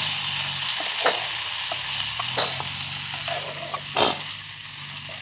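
A spatula stirring poha in a frying pan, scraping and knocking against the pan three times, the last the loudest, over a steady sizzling hiss.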